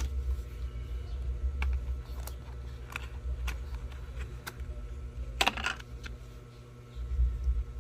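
Hands handling packaged stationery items on a table: scattered light clicks and taps of plastic packaging, with a brief rustle of packaging about five and a half seconds in.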